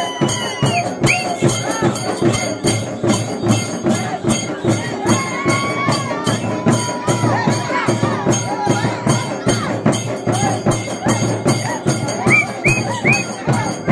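Several shoulder-slung two-headed barrel drums (dhol) beaten together in a fast, even folk rhythm, with crowd voices mixed in. A high-pitched tone is held for a few seconds in the middle.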